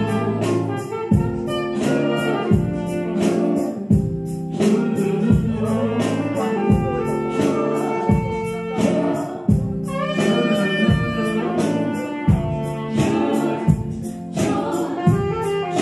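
Live gospel music: a band playing with singing over a steady beat.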